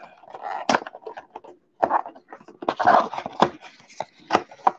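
Cardboard trading-card box being opened by hand and its foam insert and paper wrap pulled out: irregular rustling with a series of sharp snaps and clicks.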